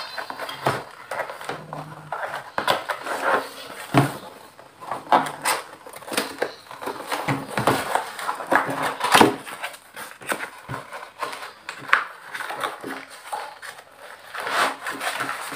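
Plastic wrapping on a cardboard box crinkling and crackling as it is peeled and torn open by hand, with irregular clicks and scrapes of the box being handled.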